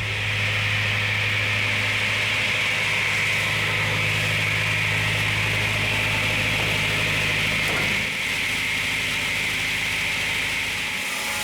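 A motor-driven machine running steadily, with a low hum under a hiss. It eases slightly about eight seconds in.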